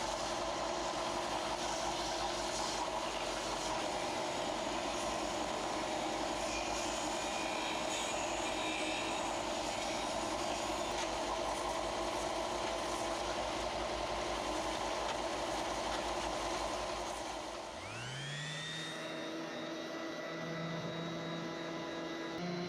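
A power tool running steadily with a grinding, abrasive noise. About eighteen seconds in, the sound changes to an electric motor winding up to speed, its whine rising and then holding steady.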